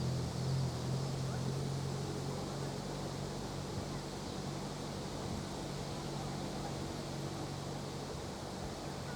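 A low, steady engine drone that slowly fades, over wind noise.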